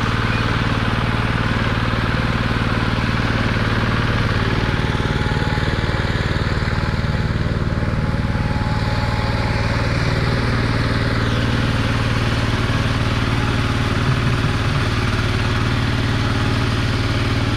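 A walk-behind tractor's engine running steadily as the machine puddles a flooded rice paddy, churning the wet soil into mud.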